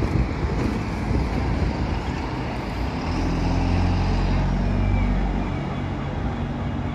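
Diesel engine of a single-decker bus passing close by and pulling away, its low engine note swelling about three seconds in and easing off near the end, over street traffic.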